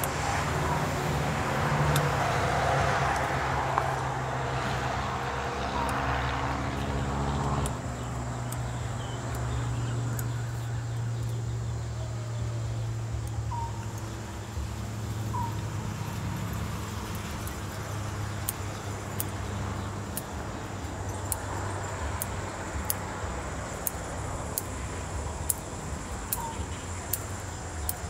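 A motor or engine hums steadily, its pitch changing and dropping about eight seconds in. A few short bird chirps come through, and in the second half there is a run of light clicks.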